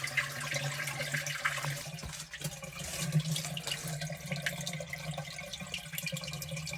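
Water running and splashing, with many small ticks and a steady low hum underneath.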